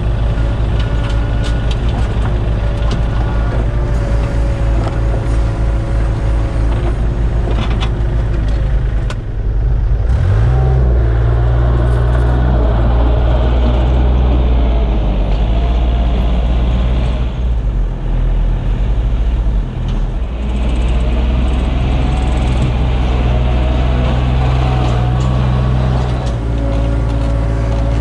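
Background music with held notes over a deep, pulsing bass; the arrangement changes about ten seconds in.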